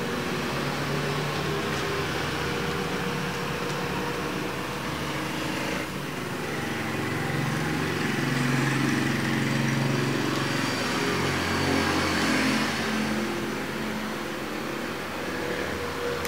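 Steady hum of a running engine over a hiss, its pitch shifting a couple of times, about six and eleven seconds in.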